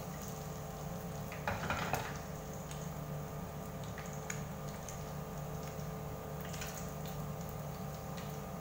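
Fish frying in a pan of hot oil, a steady sizzle, with metal tongs clicking against the pan as the pieces are turned and lifted out; a louder patch of sizzle and clatter comes about a second and a half in.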